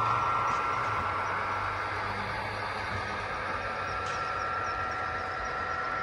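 Model diesel locomotives' engine sound running steadily as the train of boxcars rolls past, a steady high tone over a low hum, easing slightly over the first couple of seconds as the locomotives move off.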